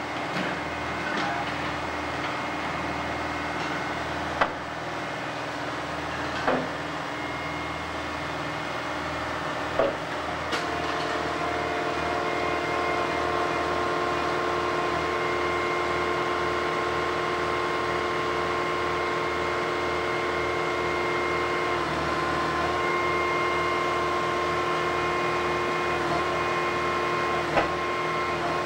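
Steel rails howling as two hydraulic excavators lift and drag a section of track, sleepers and all: several steady high tones that grow stronger about ten seconds in, over the running excavator engines, with a few sharp metal clicks.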